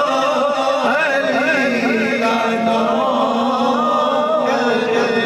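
Naat sung by a male voice, drawing out a long, wavering ornamented line with no clear words, over a steady held drone.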